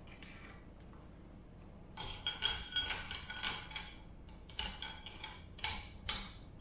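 Snap ring pliers and a stiff snap ring clinking against the axle shaft and hub as the ring is worked into place: a dozen or so sharp metallic clinks and taps with a short ring, starting about two seconds in.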